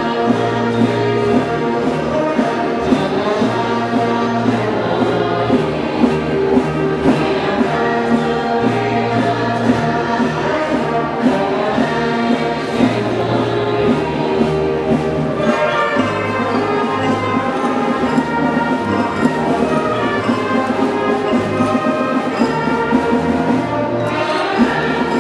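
Orchestral music with a choir and a steady beat.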